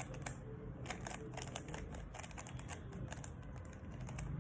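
Rubik's Cube being turned by hand: quick runs of plastic clicks as the layers snap round, densest in the first three seconds and sparser after.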